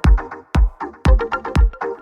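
Background electronic dance music with a steady four-on-the-floor kick drum, about two beats a second, under repeating synth notes.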